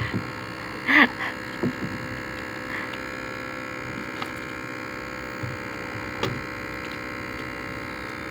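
A steady buzzing hum made of many even tones, with a few short knocks and a brief voice-like sound about a second in.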